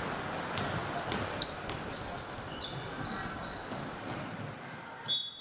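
Basketball shoes squeaking in short, high chirps on a hardwood court, with a basketball bouncing, as players jostle under the basket.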